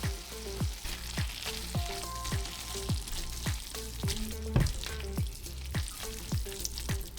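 Pasta sizzling in a frying pan as it is stirred with grated Parmesan and starchy cooking water, a fine steady crackle. Background music with a steady beat plays over it.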